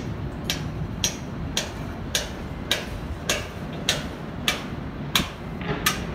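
Evenly paced sharp knocks, about ten in a row at a little under two a second, typical of a hammer striking steel, over a steady low rumble.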